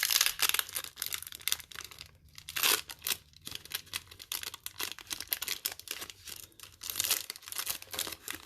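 A Magic: The Gathering booster pack's foil wrapper being crinkled and torn open by hand, an irregular crackling throughout.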